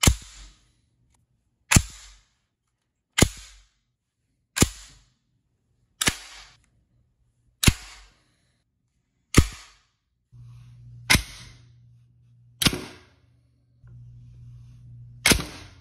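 The bolt of an MP5-style HK rifle slamming forward as its charging handle is released from the locked-back notch, cycled again and again: ten sharp metallic clacks, each with a brief ring, about one every one and a half seconds. A low hum comes in behind the last few.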